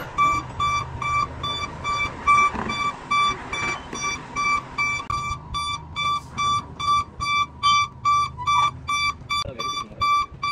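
Electronic warning beeper sounding a steady, even beep about three times a second, with a low engine-like hum underneath that fades about halfway.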